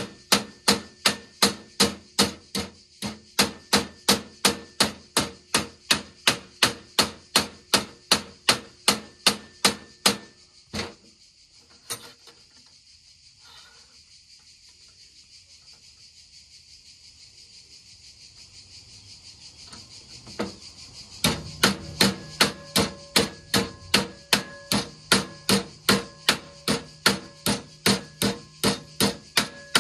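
Hammer striking metal in a steady rhythm, about three blows a second, with a ringing note after each blow. The blows stop about ten seconds in and start again about twenty seconds in.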